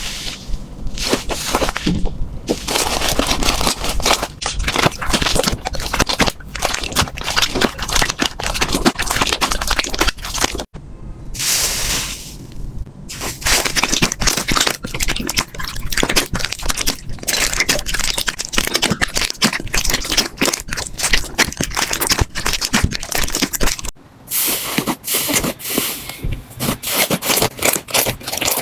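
Slime being squished and pressed by hand: a dense run of sticky crackles, pops and clicks. The texture changes abruptly about eleven seconds in and again about twenty-four seconds in.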